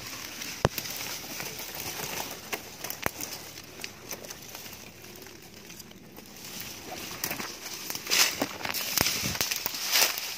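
Dry leaves and grass crackling and rustling as someone moves through dry undergrowth, with a few sharp clicks early on and louder bursts of brushing near the end.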